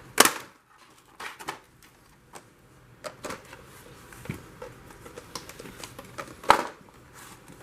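Hard plastic clamshell packaging being cut and pried open: scattered sharp clicks, snaps and crackles of stiff plastic, with one loud snap about a quarter second in and another about six and a half seconds in.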